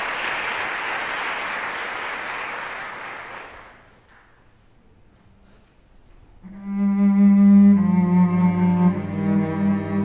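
Audience applause dying away over the first few seconds, then a short hush. About six and a half seconds in, a cello quartet begins playing, with long sustained bowed chords.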